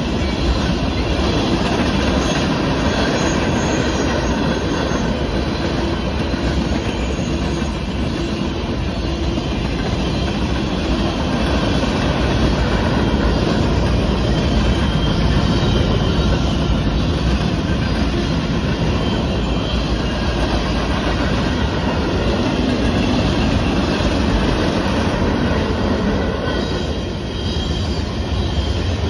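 Freight cars of a BNSF manifest train rolling past over a grade crossing: a steady, loud rumble and clatter of steel wheels on rail as tank cars and covered hoppers go by.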